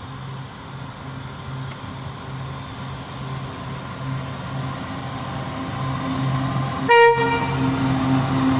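Diesel train approaching, its engine drone growing steadily louder, with one short horn toot about seven seconds in.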